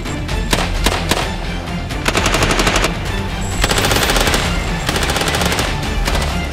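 Bursts of automatic fire from a Textron LSAT cased-telescoped light machine gun over background music: a short burst about two seconds in, then a longer burst of about two seconds near the middle.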